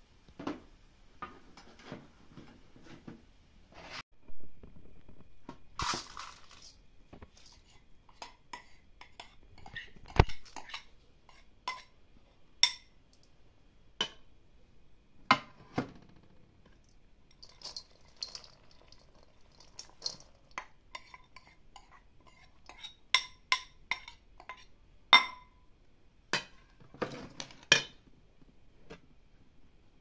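Cookware and utensils clinking and knocking at irregular intervals, with a scattering of sharp strikes, some of them ringing briefly like metal or glass.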